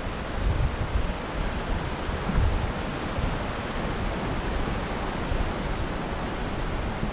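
Rushing water of a rocky forest stream, a steady even hiss, with a few low gusts of wind buffeting the microphone.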